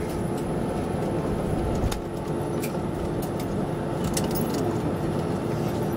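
Airliner cabin noise while taxiing after landing: a steady low rumble from the jet engines at idle and the airframe rolling on the taxiway, with a constant hum and a few faint light clicks.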